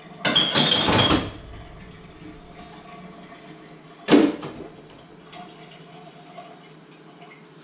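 Metal cookware clattering and scraping for about a second, then a single sharp clank about four seconds in, with faint knocks of dishes between.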